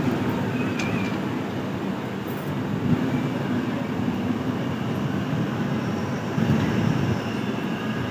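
Sapt Kranti Express LHB passenger coaches rolling past on the adjacent track: a steady rumble of wheels on rail, with a brief louder knock about three seconds in.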